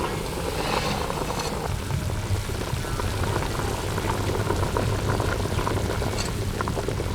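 Pot of country chicken soup boiling, a steady bubbling with scattered small pops and ticks over a low rumble.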